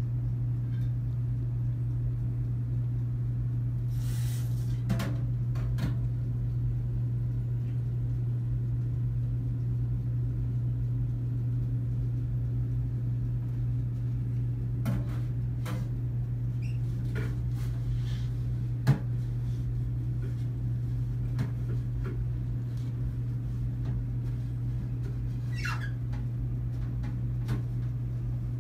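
Steady low hum with a few scattered light clicks and a short squeak about 26 seconds in.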